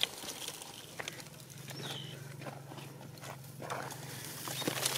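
Faint scattered scuffs and crackles of a baby macaque clambering over dry earth clods and straw, with a low steady hum coming in about a second and a half in.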